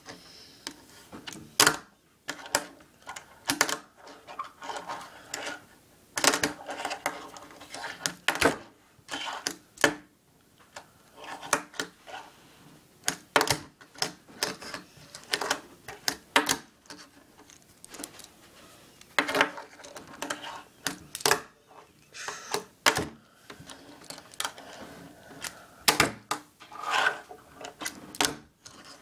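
Tech Deck fingerboard being flicked through tricks on a wooden surface: uneven clusters of sharp clacks as the tail pops and the deck and wheels land, with short pauses between tries.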